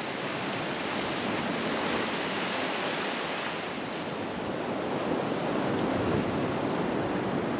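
Sea waves washing against a rocky shore, a steady rushing that swells and eases.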